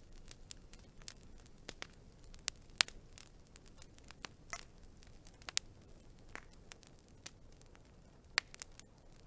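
Wood fire burning, crackling with irregular sharp pops over a soft hiss; the loudest pops come about three seconds in and again about eight seconds in.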